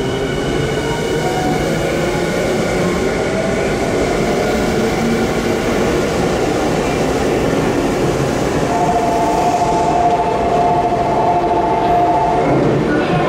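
Toei 6300 series subway train arriving, with wheel-on-rail rumble and the whine of its Mitsubishi GTO-VVVF inverter and induction traction motors as it slows. Several high whining tones fade out in the first half, and in the last few seconds a steady two-note tone cuts off sharply.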